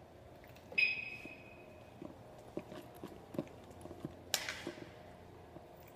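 Faint, irregular footsteps and small knocks on a concrete parking-garage floor, with a short high ringing tone that fades out about a second in.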